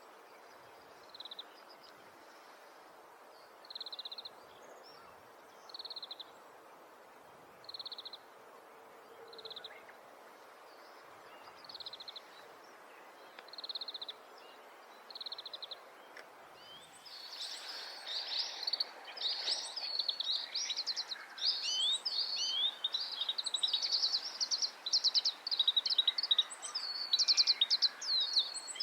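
Oriental greenfinch calling: short, high call notes about every two seconds. After about seventeen seconds these give way to a louder, fast twittering run of rapid notes, over a steady background hiss.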